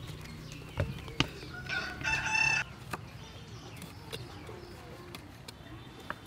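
A rooster crows once, about two seconds in, lasting under a second. A few sharp knocks of a cleaver on a wooden chopping board are scattered around it.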